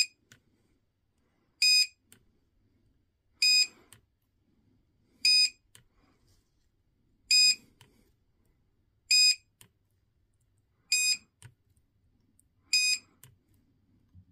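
Battery spot welder beeping as it fires weld pulses onto 18650 cells: eight short, high beeps, one about every two seconds. A faint click follows most of them.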